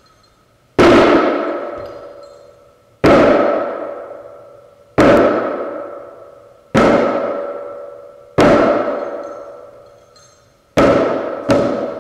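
Dhyangro, a Nepali shamanic frame drum, struck slowly, about one stroke every two seconds, each stroke ringing on and fading away; near the end the strokes come faster.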